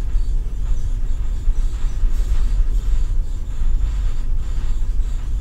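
Steady low rumble of ship engine-room machinery, with a few faint clicks as the burner's metal parts are handled in the vise.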